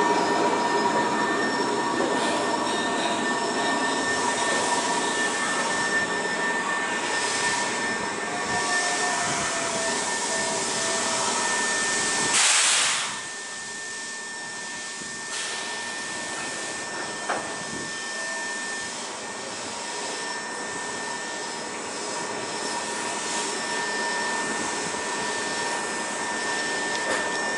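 Electric train slowing to a stop at a platform, its running noise mixed with two thin steady whines. About twelve seconds in there is a short loud burst of air hiss as it comes to rest, and the stopped train then sits with a quieter steady hum and a high whine, with a single click a few seconds later.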